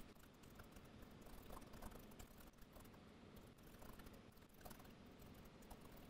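Very faint typing on a laptop keyboard: a few scattered, light key clicks with near silence between them.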